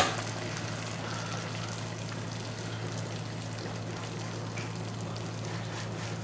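A click from the gas stove knob being turned, then thickened minced-pork sauce simmering in a wok, a steady soft bubbling hiss over a low steady hum.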